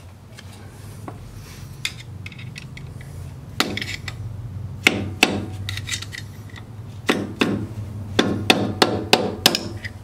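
Hammer tapping a screwdriver against the slotted spanner nut of a forklift's front wheel hub, turning the nut to back off the wheel bearing preload and give a little end play. About ten sharp metal knocks come in uneven groups, starting about a third of the way in and coming closer together near the end.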